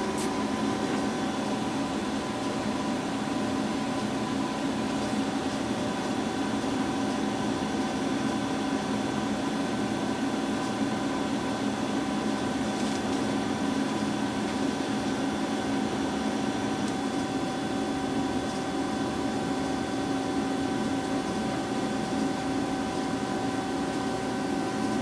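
Lucas 542B-84 CNC horizontal boring mill running with a steady, even hum of several held tones while its B-axis rotary table is moved.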